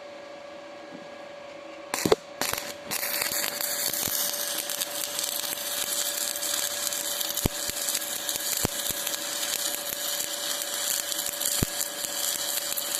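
Stick (shielded metal arc) welding: the electrode strikes the arc with a few sharp pops about two seconds in, then the arc crackles and sizzles steadily as a weld bead is run.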